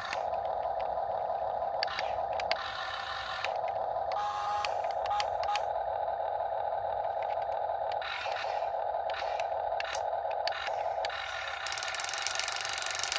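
Electric gear motors of a Huina 1/14-scale RC excavator whining as the arm and bucket move, stopping and starting again a few times, with small clicks from the gearing.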